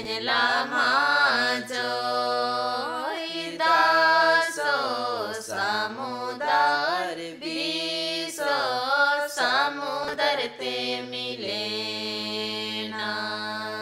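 A Khadia durang song: a voice sings the melody, sliding between notes, over steady held low notes of the accompaniment.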